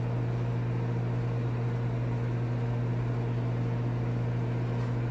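Steady low mechanical hum with a light hiss, holding one pitch without change.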